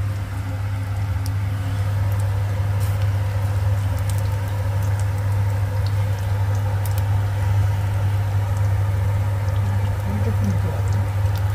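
Masoor dal fritters deep-frying in hot oil in a steel pan: steady sizzling with scattered small pops, over a constant low hum.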